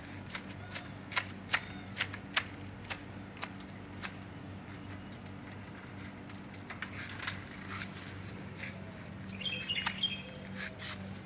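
Garden shears snipping a tree's branches: a quick series of sharp clicks at first, then a few more cuts later. A bird chirps briefly near the end.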